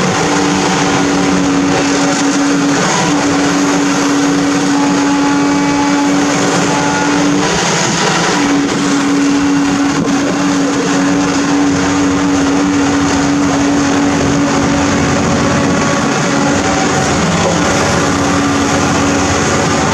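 Diesel engine of a TKM200-10 amphibious backhoe running steadily under throttle, with a strong steady drone that dips briefly about three times, near three seconds, around eight seconds and around seventeen seconds in.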